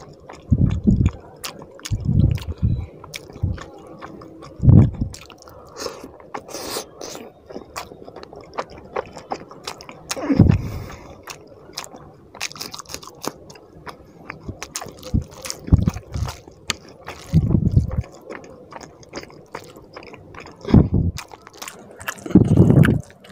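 Close-miked eating sounds of a man eating fish curry and rice by hand: wet chewing and lip smacking, with sharp clicks and dull low thumps every few seconds.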